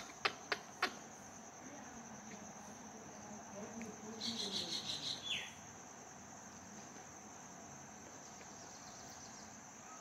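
Indian ringneck parakeet giving a short chattering call about four seconds in that ends in a quick falling note, over a steady high-pitched whine. A few sharp clicks in the first second.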